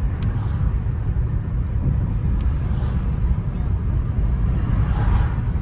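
Steady low road and engine rumble inside the cabin of a moving car, with a couple of faint clicks.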